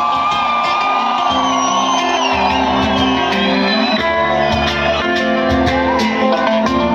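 Live rock band performing loud through a PA, a vocalist holding a long high note over guitar and bass, with crowd shouts.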